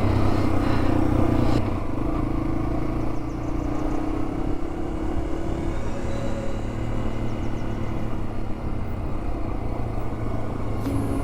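Yamaha TW200's single-cylinder engine running steadily under way, easing off slightly about one and a half seconds in.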